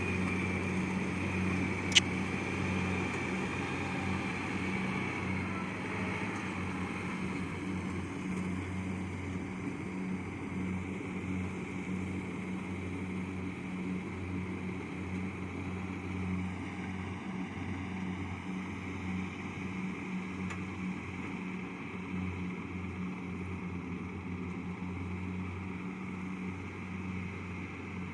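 Kubota DC70 Plus combine harvester running steadily while cutting rice, a continuous diesel engine hum with a high whine that fades after about six seconds. A single sharp click about two seconds in.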